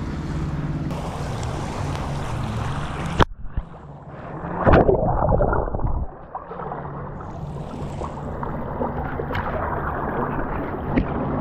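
Water sloshing and gurgling around a camera held at the water's surface during a fish release, with a loud splash about five seconds in. Wind on the microphone in the first three seconds, ended by a sharp click.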